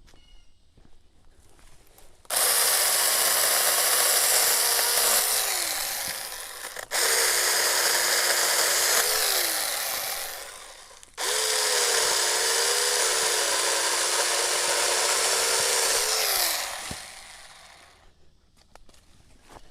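24-volt ASJMREYE 4-inch mini cordless chainsaw cutting tree limbs in three runs of a few seconds each. The electric motor's whine wavers under load and falls in pitch near the end of each run.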